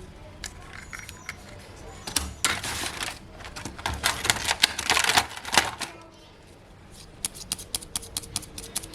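Small plastic toy pieces being handled, with sharp clicks and taps. In the middle there is a few-second stretch of rustling, crinkly handling, and near the end a quicker series of light clicks.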